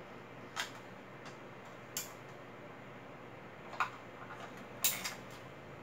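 A handful of light, sharp clicks and taps at irregular intervals over a faint steady hum, the loudest a quick double click near the end.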